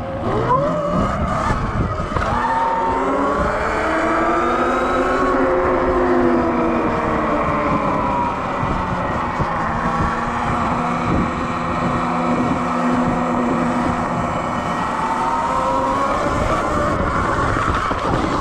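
Sur Ron Light Bee X electric dirt bike's motor whining, its pitch climbing sharply about half a second in, then rising and falling as the bike speeds up and slows down, over steady wind and ground rumble.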